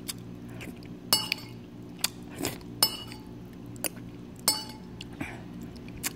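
Metal spoon clinking against a ceramic bowl of leftover ramen broth: about five sharp, ringing clinks roughly a second apart, over a steady low hum.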